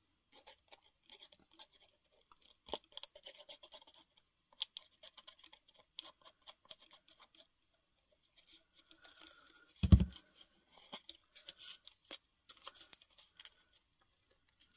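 Small handling noises from a plastic glue bottle and kraft cardboard as white glue is squeezed onto the card: light scratches, rustles and clicks, with one dull thump about ten seconds in.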